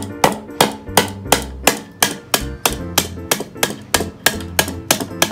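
Repeated metal-on-metal knocks, about three a second, as the spine of a knife wedged into a thin wooden board is struck with the back of a larger blade, batoning the board to split it into kindling.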